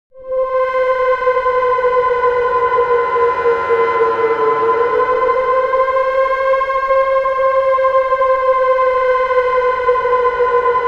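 A horror sound effect: a sustained, siren-like tone with several overtones that starts suddenly out of silence and holds a nearly level pitch, sagging slightly about four to five seconds in while fainter gliding tones sweep beneath it.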